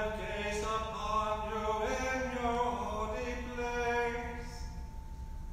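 Sung liturgical chant: long held notes that step up and down in pitch, breaking off briefly near the end.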